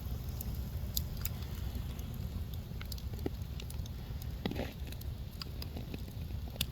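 Wood fire crackling in an outdoor fire pit, with scattered sharp pops over a steady low rumble. There is a louder rustle about four and a half seconds in.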